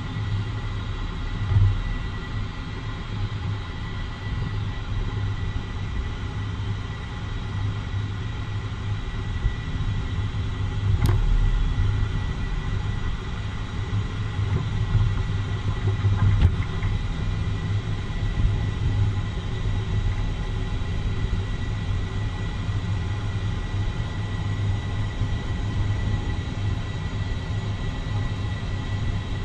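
A 2013 Jeep Wrangler Unlimited being driven, with a steady low rumble of engine and road noise. A single sharp click about eleven seconds in is followed by a brief surge in the rumble, and a fainter click comes a few seconds later.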